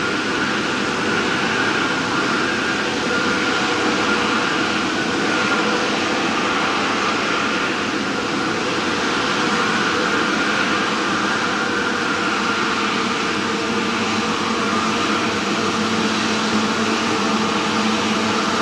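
Jet airliner engines running, a loud, even rush of noise with a faint steady whine held through.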